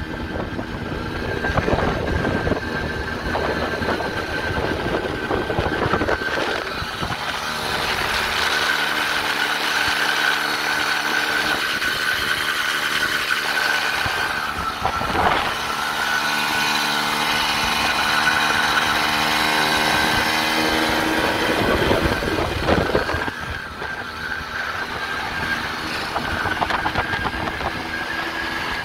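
Balkan 50 moped's 50 cc air-cooled two-stroke single running under way, heard from the saddle. Its note holds steady for long stretches, changes sharply about halfway through, and comes with a low rushing rumble at the start and again a little after two-thirds of the way. The engine is still being run in, at about 300 km.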